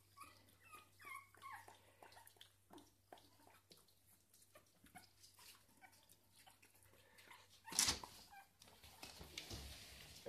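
Jack Russell terrier puppy whimpering in a few short, high cries in the first second or so, then faint small clicks and scuffs. A single loud thump comes a little before the end.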